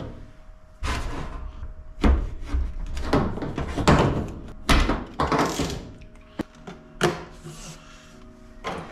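Bilge pump and its hose being handled and set into place against an aluminum jon boat hull: a series of thunks, knocks and scraping, with a sharp click about six seconds in.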